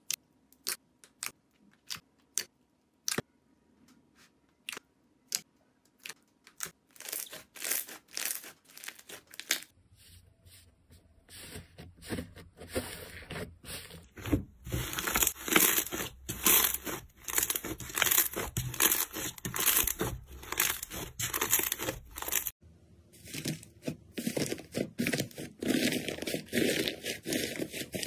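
Hands playing with slime. At first there are separate sharp pops as fingers press into glossy slime, coming faster and closer together. Then come dense crackling and tearing sounds as thicker and fluffy slimes are squeezed and stretched.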